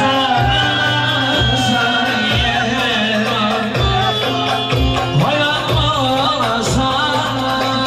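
Turkish folk dance tune (oyun havası) played on a bağlama (saz) with a singing voice, over a steady low beat.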